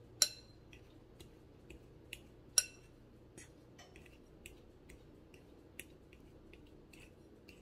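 Metal fork tapping against a glass bowl while coating broccoli in breadcrumbs: a scatter of light ticks, with two sharp ringing clinks, one just after the start and one about two and a half seconds in.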